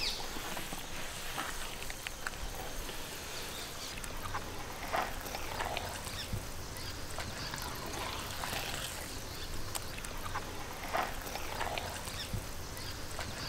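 Hand squelching and slapping through thick chocolate cake batter in a large metal basin, with irregular wet squelches every second or so.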